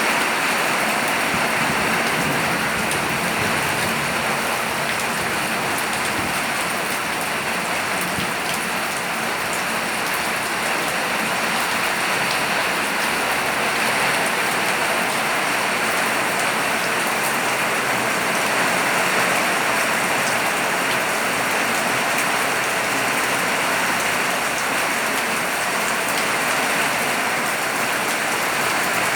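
Steady rain falling on surfaces, an even hiss that doesn't let up.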